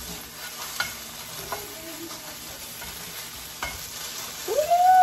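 Egg with spinach and pico frying in a nonstick skillet, sizzling while a slotted spatula stirs and scrapes it around the pan, with a few light taps. Near the end a short rising tone cuts in and holds for about a second, louder than the frying.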